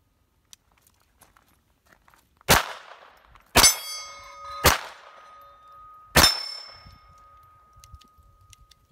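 Four shots from a Smith & Wesson SW22 Victory .22 LR pistol, unevenly spaced over about four seconds. Steel targets ring after some of the hits, with a long ring after the last shot.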